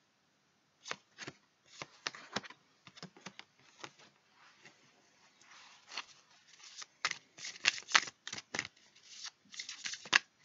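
Tarot cards being shuffled and handled: a run of short, irregular card snaps and flicks that begins about a second in and comes thicker in the second half.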